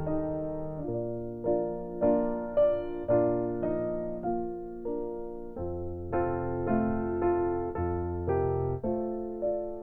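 Slow, gentle piano music: single notes struck about once or twice a second and fading away, over held low bass notes that change every few seconds.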